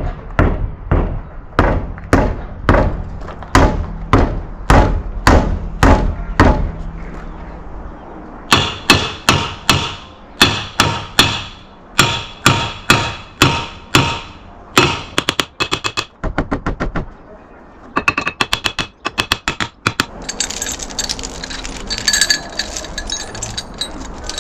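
Sledgehammer blows on metal, about two a second in two long runs separated by a short pause; the second run rings with a metallic tone. Near the end come quicker, lighter knocks and clinking.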